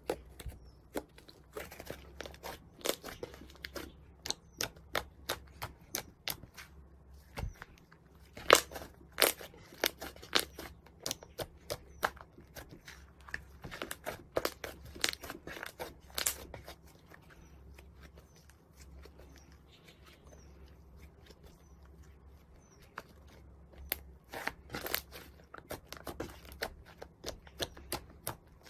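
Thick white fluffy slime being squeezed, stretched and pressed by hand, giving irregular sharp pops and crackles as air pockets in it burst. The crackling thins out for a few seconds in the middle and picks up again near the end.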